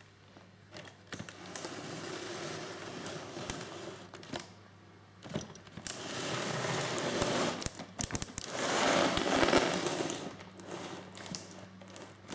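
Small battery motor of a Fisher-Price Puppy's Smart Train toy running, with plastic clicking and clattering. It comes in three spells, the last, about eight seconds in, the loudest.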